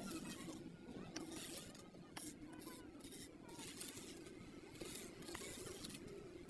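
Faint scraping of damp cement mix being pushed and smoothed into a pillar mould by trowel and hand, in short irregular strokes.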